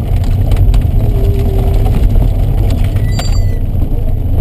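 Alpine A110 Berlinette rally car's engine running at low revs, heard loud from inside the cabin. About three seconds in there is a brief sharp click with a short high tone.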